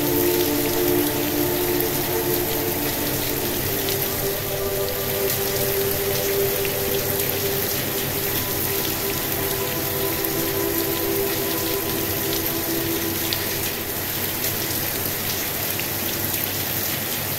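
Steady rain with fine raindrop patter, under a soft drone of sustained relaxation-music tones that shift to new notes about three or four seconds in.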